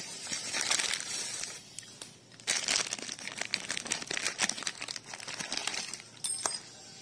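Plastic wrapping crinkling and rustling in bursts, with small clicks, as a part is handled and unwrapped. A short metallic clink rings briefly about six seconds in.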